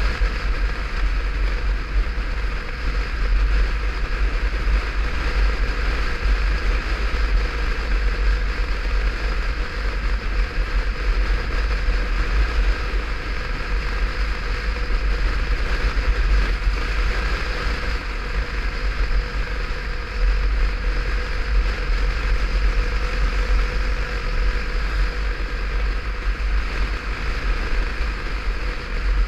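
Motorcycle cruising at a steady speed, heard from a helmet-mounted camera: heavy wind rumble on the microphone over a steady, unchanging engine note.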